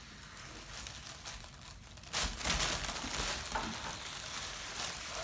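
Helium balloon being handled, crinkling and rustling, starting about two seconds in after a quieter stretch.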